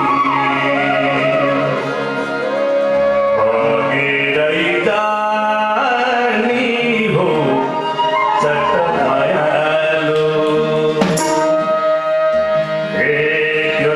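Live Nepali folk song: a male voice sings over hand drums (madal and tabla), guitars and other stringed instruments.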